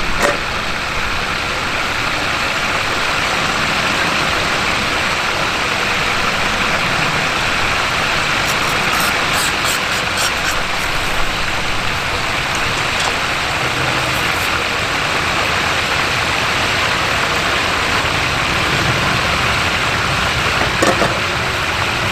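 Propane turkey fryer running: a steady rushing noise from the burner flame and the oil frying the turkey in the pot. A few faint clicks come about halfway through.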